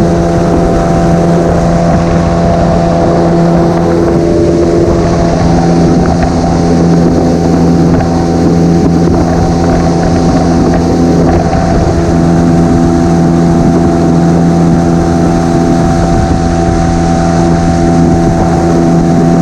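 Small boat's outboard motor running steadily at cruising speed, with wind noise on the microphone.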